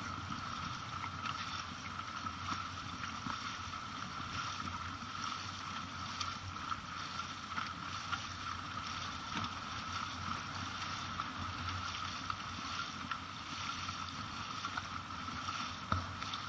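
Dragon boat paddles splashing and water rushing past as the crew paddles hard, over a steady hum.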